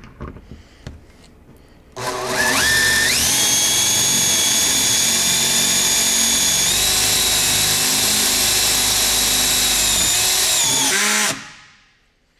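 Power drill driving a self-drilling Wingtek screw through plywood into a steel beam. The motor whine rises to speed about two seconds in, runs steadily with a small rise in pitch partway through, then winds down and stops near the end.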